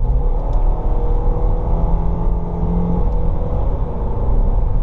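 A vehicle's engine running loudly with a steady low rumble.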